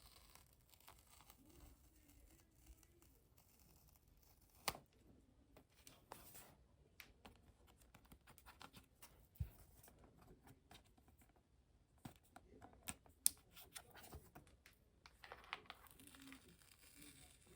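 Faint scratching, rustling and light tearing of cardboard and paper packaging as an Apple Watch box is opened by hand, with a few sharp clicks about 5, 9 and 13 seconds in.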